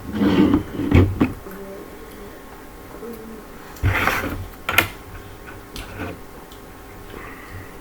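Geometric puzzle blocks being handled and set down, clattering and clicking in two short bursts, near the start and again about four seconds in.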